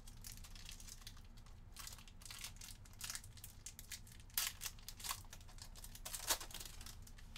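Foil wrapper of a trading-card pack crinkling and tearing as it is opened by hand, in irregular crackles with two sharper ones about four and a half and six seconds in.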